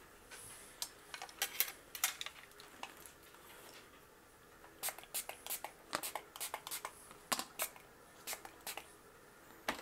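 Spray bottle of 91% rubbing alcohol squirting in a series of short, sharp sprays, in quick clusters with pauses between, disinfecting freshly washed makeup brushes.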